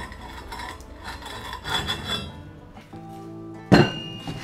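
Background music over the handling of a rusty cast-iron leg vise: rough scraping of the iron parts in the first half, then one loud, sharp knock of iron a little under four seconds in.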